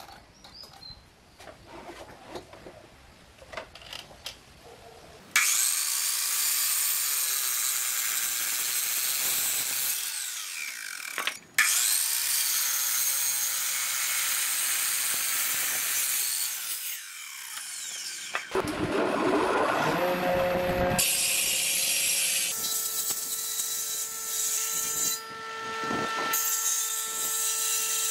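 Faint scratching and light knocks of a pencil and steel square marking a board. Then a sliding compound miter saw starts sharply and cuts through wood in two long runs. In the last several seconds a planer-jointer machine runs with a steady hum.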